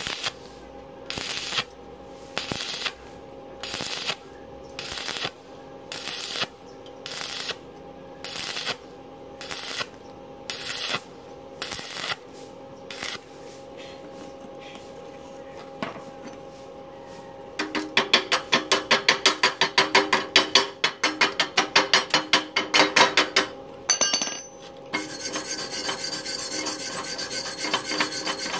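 Stick-welding arc on thin square steel tube, struck and broken in short crackling bursts about one and a half times a second: a stitch technique that keeps the thin wall from burning through. After a pause, rapid scraping strokes and then a steady scrubbing as the slag is cleaned off the bead.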